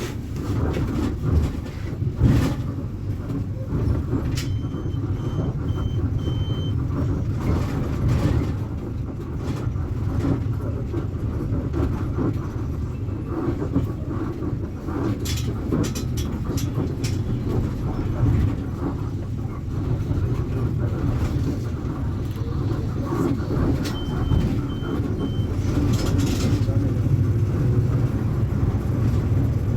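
Volksbus 9.160 OD Euro V bus diesel engine running steadily, with its level rising and falling as the bus works. A short series of high beeps sounds twice: four beeps about five seconds in and three beeps near the end.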